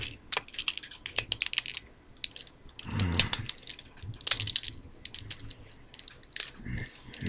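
Hard plastic parts and joints of a Transformers War for Cybertron Optimus Prime action figure clicking in quick, irregular clusters as it is twisted and folded by hand during transformation.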